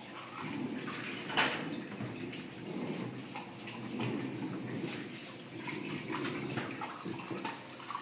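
Kitchen tap running into a sink while dishes are washed by hand, water splashing over them, with a sharp clink about a second and a half in and a few fainter knocks of crockery.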